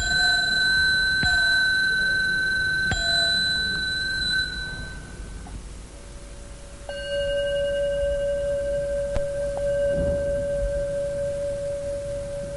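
Two meditation-hall bells. A higher-pitched bell is struck at the start, tapped again twice, and fades out about five seconds in. A lower-pitched bell is then struck about seven seconds in and rings on with a long, steady sustain.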